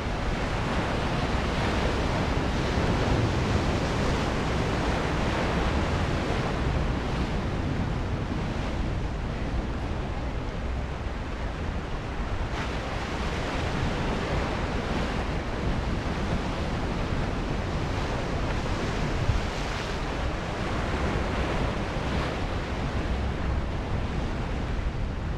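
Ocean surf breaking and washing over the rocks at the foot of the cliff, a steady wash of noise, with wind rumbling on the microphone.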